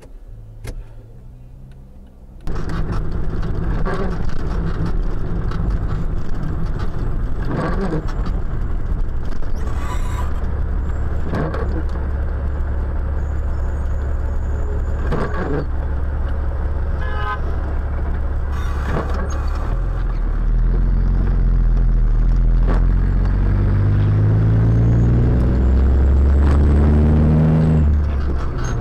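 Heavy truck driving, heard from inside the cab: a loud steady engine drone with road noise and a few knocks. From about twenty seconds in, the engine pulls through the gears, its pitch climbing and then dropping back at each shift. The first two seconds or so are a quieter low hum before the loud truck sound starts suddenly.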